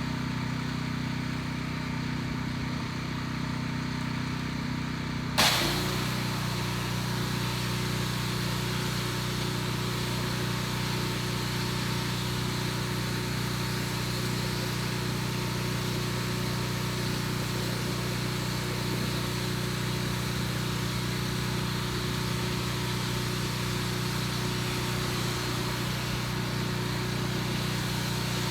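Gas pressure washer engine running steadily. About five seconds in, a sudden jolt is followed by a steady hiss of spraying water over the engine, whose note shifts as it takes the load.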